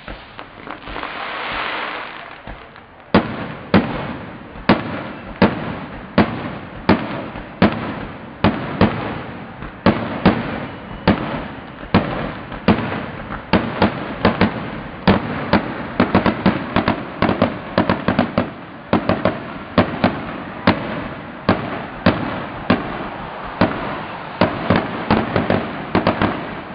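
Aerial fireworks display: shells bursting in a long run of sharp bangs, about one to two a second at first and coming faster and closer together from about twelve seconds in. The first bang comes about three seconds in, after a rushing noise.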